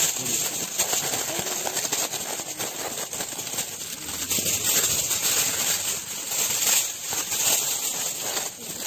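Aluminium foil crinkling and rustling as it is wrapped and pressed around a chicken parcel: a steady run of dense crackly rustles.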